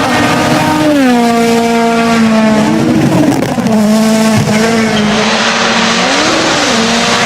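Rally car engine at high revs, its pitch dropping and rising with gear changes and throttle lifts. A broad rushing noise of tyres and gravel builds from about five seconds in.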